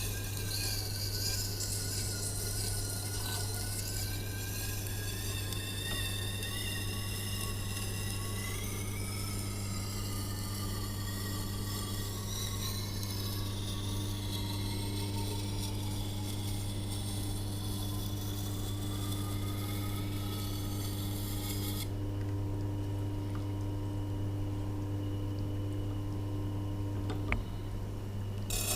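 Tormek T8 wet grinder running with a steady motor hum while a kitchen knife blade is drawn across its turning wheel: steel scraping on stone with slowly wavering whines. About two-thirds of the way through the scraping stops and only the motor hum is left, with a single click shortly before the end.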